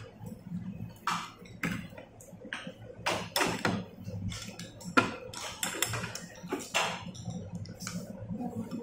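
Chopsticks and spoons clicking and clinking against ceramic bowls and plates during a meal, an irregular scatter of short knocks with the sharpest about five seconds in.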